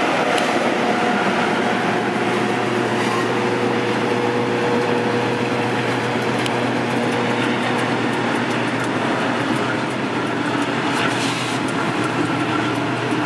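Two diesel-electric freight locomotives running past close by, hauling a train of hopper wagons: a steady loud engine drone with a few held tones through it and occasional sharp clicks from the wheels on the rails.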